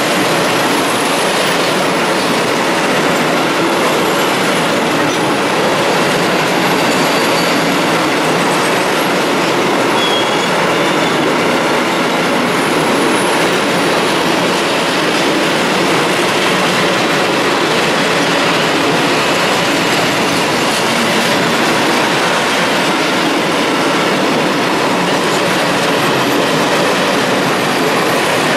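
Long freight train of Eas-type open coal wagons rolling past close by: a steady, loud rumble and clatter of steel wheels on the rails, with faint wheel squeal at times.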